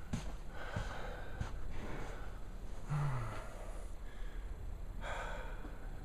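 A person breathing close to the microphone: several noisy breaths, with a short low sighing grunt about three seconds in.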